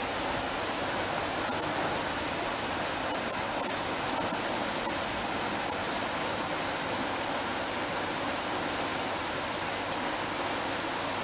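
Steady, even hiss with a bright high-pitched band, the loudest thing throughout. Under it, a few faint ticks as a Shiba Inu licks and chews a wet chunk of watermelon.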